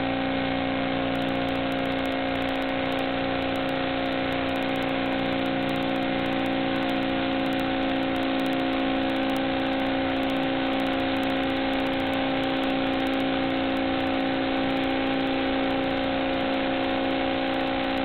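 Steady electrical buzz over hiss that never changes in pitch, the noise of the analog FPV video link's empty audio channel. It does not follow the drone's throttle.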